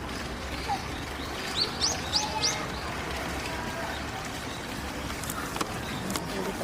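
A small bird calling: four quick, high, rising chirps about a second and a half in, over steady outdoor background noise.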